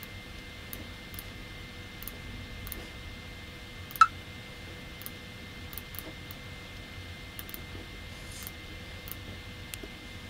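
Computer mouse clicking now and then over a steady faint hiss and hum, with one sharp, much louder click about four seconds in.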